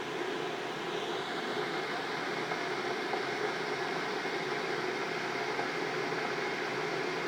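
Electric kettle heating water, a steady rushing hiss that grows a little brighter about a second in.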